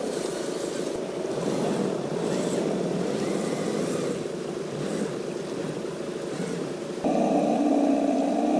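Radio-controlled truck's motor and drivetrain running, a steady mechanical drone that gets suddenly louder and more whining about seven seconds in.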